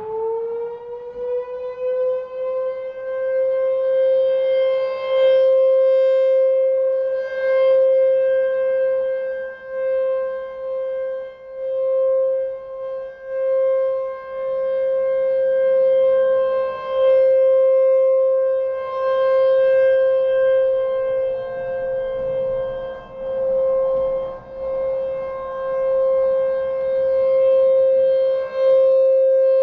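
American Signal T-128 rotating tornado siren sounding a steady alert tone. It winds up in pitch at the start, then holds one note, swelling and fading every few seconds as the siren rotates.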